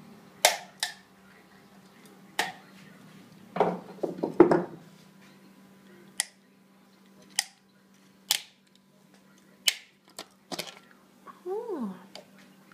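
Plastic case of a 6-volt lantern battery being pried and snapped open with a screwdriver and pliers in a bench vice: a series of separate sharp cracks and clicks, the loudest a quick cluster about four seconds in, over a faint steady hum.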